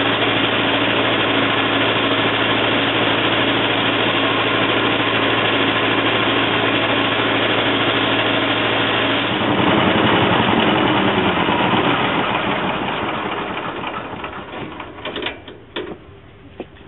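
Engine-driven hammer mill running steadily while mesquite pods are fed into it. About nine seconds in, the engine's steady hum stops and the mill whirs on, fading over several seconds as it spins down, with a few sharp knocks near the end.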